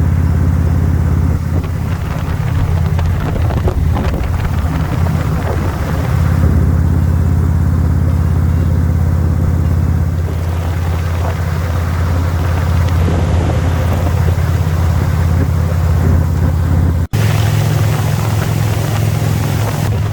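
Indian Roadmaster Elite V-twin engine running steadily at cruising speed, a loud low drone with wind rushing over the microphone. There is a brief break about 17 seconds in, after which the engine note is slightly different.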